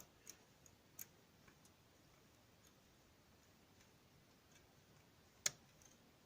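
Sparse faint clicks of a lock pick on the pins inside an Abus Pfaffenhain padlock, probing for spool pins while the core sits in a false set. A few light clicks come in the first second and a sharper one about five and a half seconds in.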